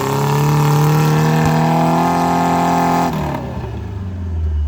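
Off-road 4x4's engine held at high revs under load, the pitch slowly climbing, then dropping sharply about three seconds in as the throttle comes off, settling to a low rumble.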